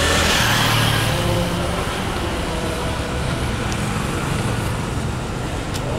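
Street traffic noise: passing cars with a steady low engine hum and road noise. A vehicle goes by louder in the first second or so.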